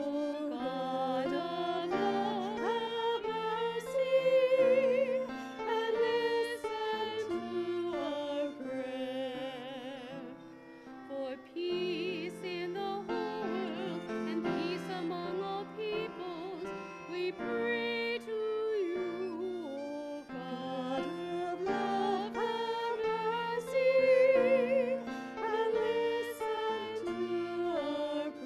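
A litany being sung in church: a singing voice with strong vibrato carries the melody over sustained instrumental chords, swelling loudest twice.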